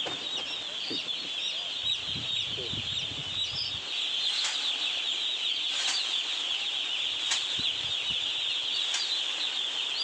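Hundreds of day-old chicks peeping all at once in a dense, continuous high-pitched chorus. A few light clicks sound through it in the second half.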